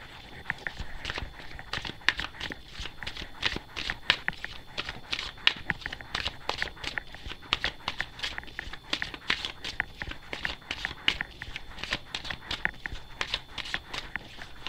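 A deck of Osho Zen Tarot cards being shuffled by hand: a continuous run of quick, irregular card flicks and slaps.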